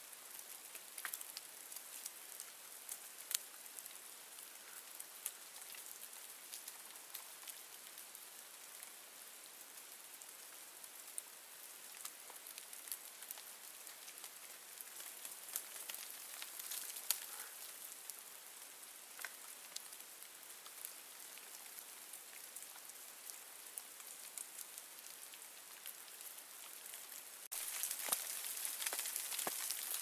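Snow melting off sunlit conifer branches: scattered, irregular drips and soft ticks of meltwater and falling snow over a faint steady hiss, which grows louder for the last couple of seconds.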